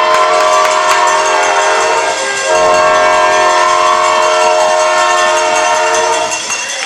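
Arena goal horn sounding two long, loud blasts, a steady chord of several notes with a short break between them, marking a goal.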